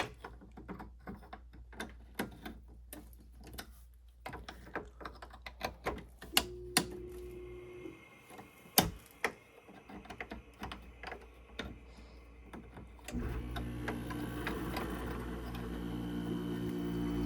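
Irregular clicking from the manual controls of a Midea 5000 BTU window air conditioner being worked. About thirteen seconds in, the unit starts up with a steady hum that grows a little louder toward the end.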